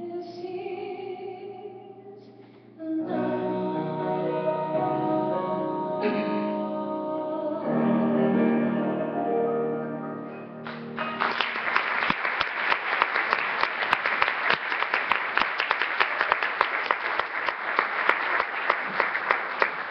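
A woman singing the closing line of a slow ballad, ending on a long held note; about halfway through, audience applause breaks out.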